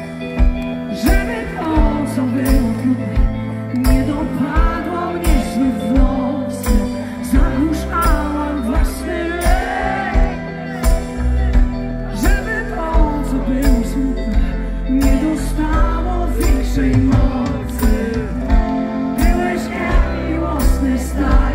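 Live pop-rock band playing: a woman singing lead over drums, bass guitar and keyboards through a concert PA, recorded from within the crowd. The bass and low end get heavier about halfway through.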